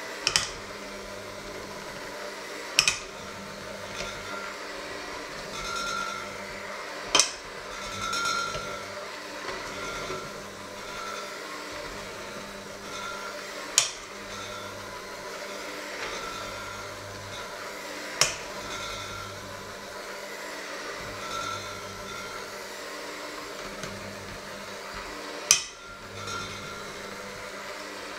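Electric hand mixer running steadily, its beaters working a thick mixture in a stainless steel bowl, with about six sharp clanks of metal on the bowl spread a few seconds apart.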